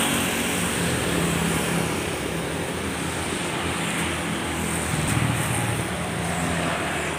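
Steady road traffic noise: an even hiss with a low engine hum underneath.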